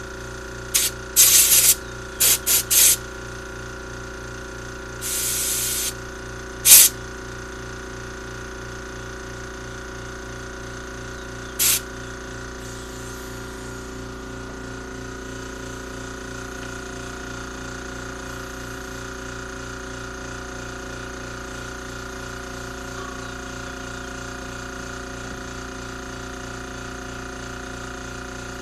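Short hissing bursts of pressurised spray cleaning the parts of a glass fuel filter: about half a dozen quick blasts in the first twelve seconds, one held for about a second. After that there is only a steady low hum.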